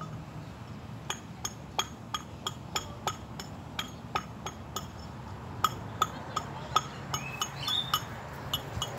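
Metal hand tool tapping: light clinking strikes with a short ring, irregular, about one to three a second, the loudest a little after halfway.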